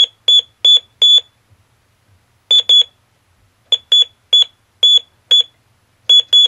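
Short, high-pitched electronic beeps from a Science Fair 150-in-One kit's rain-detector circuit, keyed by hand on a telegraph key as Morse code. The first groups are four quick beeps, then two (H and I, spelling "HI"), followed by more irregular groups.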